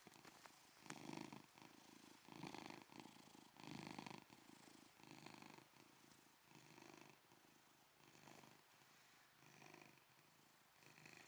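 Domestic cat snoring and purring faintly, in slow regular breaths about one every second and a half.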